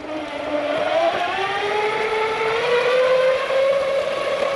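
Ecomobl M24 AWD electric skateboard's motors whining as the board accelerates: a rising whine that climbs over about three seconds, then holds steady at speed.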